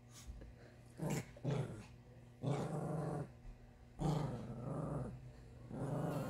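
Chihuahua growling angrily in about five separate bouts, worked up and agitated.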